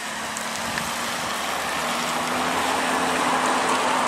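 Road vehicles approaching on a wet highway: tyre hiss on the wet road grows steadily louder, under a low steady engine hum.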